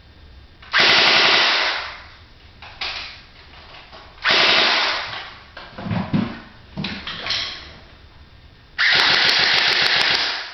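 Airsoft M4A1 carbine firing rapid full-auto bursts: a burst about a second in, another about four seconds in, short spurts between, and a longer burst near the end.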